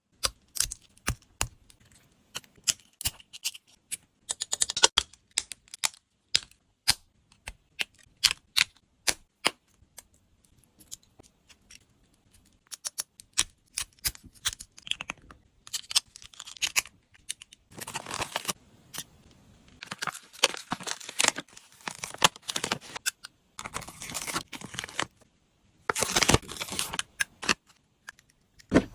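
Many small, sharp plastic clicks and taps from a Hello Kitty toy refrigerator being handled, its doors and parts being opened and fitted, with several noisy stretches of a second or two in the second half.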